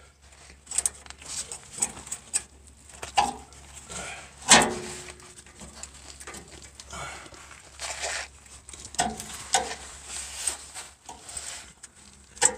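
Scattered clicks and scrapes of a gloved hand working a fuel-line quick-connect fitting with a plastic disconnect tool at the fuel filter, trying to release the line, with one louder knock about four and a half seconds in.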